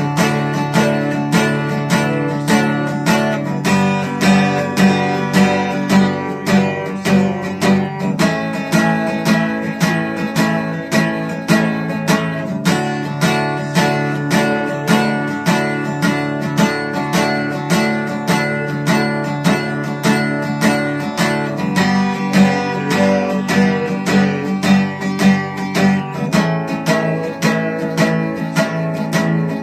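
Acoustic guitar strummed in a steady, even rhythm, chords ringing, with no singing.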